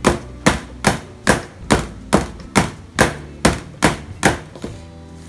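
Round aluminium cake pan full of cheesecake batter being knocked down repeatedly on a stainless steel counter to level the batter: a steady run of sharp knocks, about two and a half a second. The knocking stops shortly before the end.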